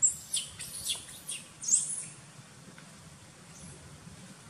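Baby macaque giving a quick run of about six high-pitched squeaks in the first two seconds, each one falling in pitch.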